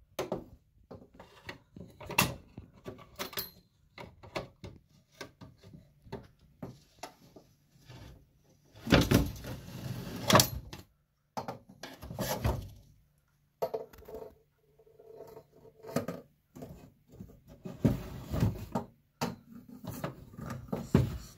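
Plastic reacher-grabber tool clicking and knocking as it grips and drags a Presto box across the wooden shelf of a hidden cabinet compartment. A run of clicks and knocks, with longer scrapes about nine, twelve and eighteen seconds in.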